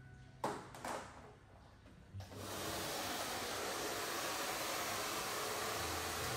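Two short knocks, then a hair dryer switched on about two seconds in and running steadily with an even blowing hiss.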